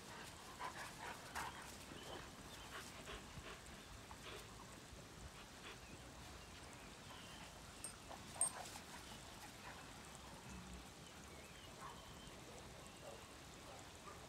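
A Tibetan Mastiff and a German Shorthaired Pointer wrestling in play. Faint, scattered short dog noises, with one sharper, louder sound about eight seconds in.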